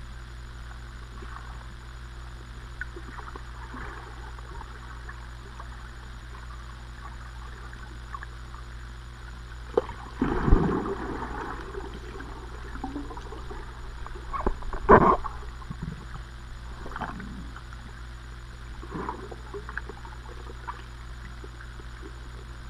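Muffled underwater sound of a swimmer moving through the water overhead: a steady low rumble, broken by sudden sloshing thumps of strokes and kicks about ten and fifteen seconds in, with fainter ones later.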